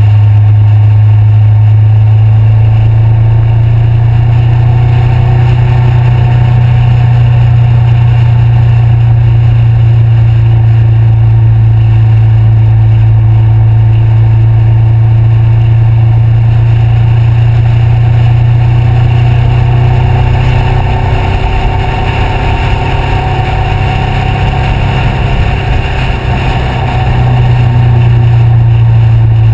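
Honda CBR500R parallel-twin engine through a Two Brothers aftermarket exhaust, running at a steady cruise with wind rush. About twenty seconds in, the engine note softens and grows rougher for several seconds, then comes back to its steady drone.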